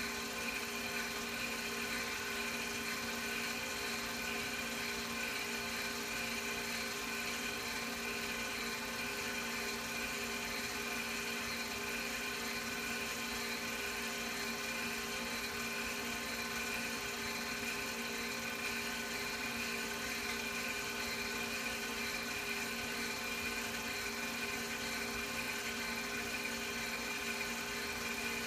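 Home-movie film projector running, a steady motor whir with several constant tones that does not change.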